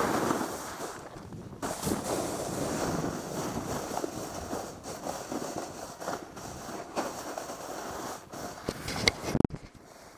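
Wind buffeting a camera microphone, mixed with the scrape of a snowboard sliding and carving over packed snow. A few sharp knocks near the end, then the rushing noise drops away.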